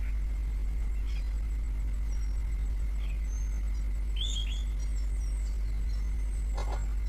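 Outdoor ambience: a steady low rumble with a few short bird chirps scattered through it, the busiest cluster about four seconds in, and a brief sharp click near the end.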